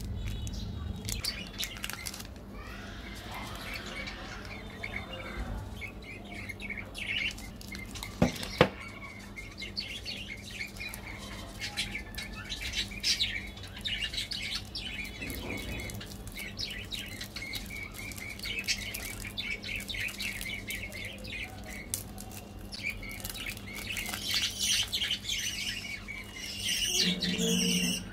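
A plastic Snickers wrapper crinkling and rustling as it is handled and peeled open, with two sharp clicks about eight seconds in. Birds chirp in the background.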